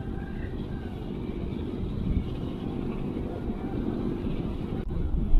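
Wind buffeting the microphone: a steady low rumble that flutters unevenly.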